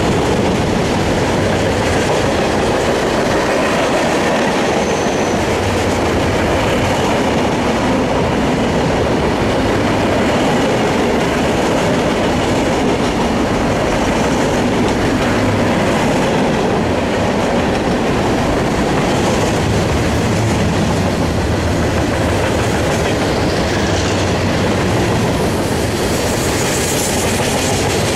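Freight train's cars rolling past on a curve: a steady, loud rumble of steel wheels on rail with clickety-clack from the rail joints.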